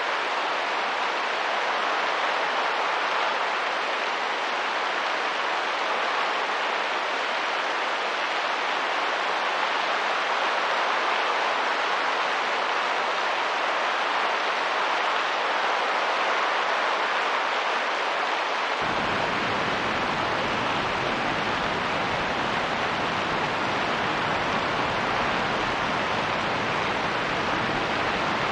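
Steady hiss of rain and wind. About two-thirds of the way through it changes abruptly, as a deeper rumble comes in beneath the hiss.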